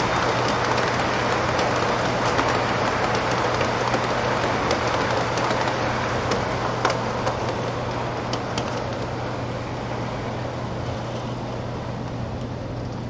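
O scale model passenger cars rolling on the layout's track: a steady rumble of metal wheels on rail with scattered clicks at the rail joints, over a steady low hum. It fades slowly as the train moves off.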